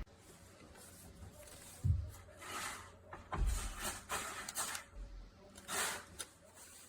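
A run of light knocks and rubbing sounds from an object being handled, a few each second, with the loudest knock about two seconds in.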